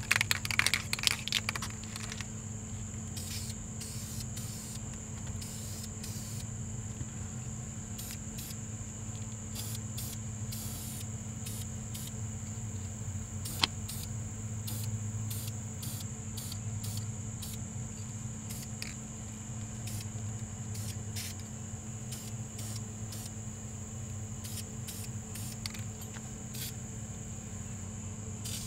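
Spray paint hissing out of an aerosol can in many short bursts onto a brake caliper. A single sharp click comes about halfway through.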